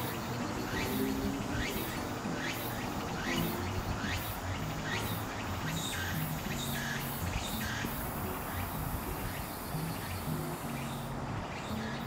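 Tsukutsukuboushi cicada (Meimuna opalifera) singing: repeated rising, buzzy calls about two a second, turning into a steadier high buzz about two-thirds of the way in. Low background music runs underneath.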